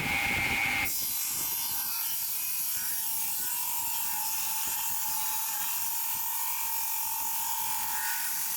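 A woodworking power tool running steadily, a hiss with a held whine. Its sound changes abruptly about a second in.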